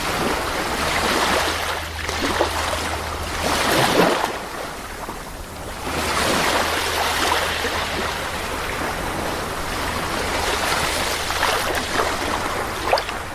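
Sea waves breaking and washing in, a rushing hiss that swells and ebbs in surges; the loudest surge comes about four seconds in.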